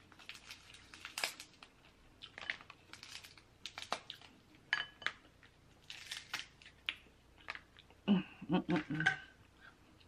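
King crab leg shells crackling and clicking as they are broken apart by hand, with a thin pick scraping the meat out: a scattered run of sharp clicks and cracks, busiest about eight to nine seconds in.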